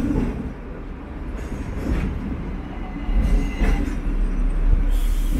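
Hong Kong double-decker electric tram running along its street tracks, heard from on board: a low rumble with a few knocks from the wheels, and a faint thin squeal about three seconds in.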